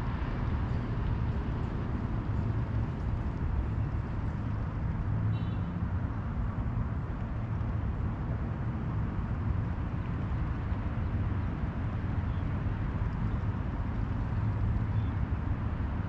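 Steady low rumble of distant road traffic, an even wash of noise with no single vehicle standing out.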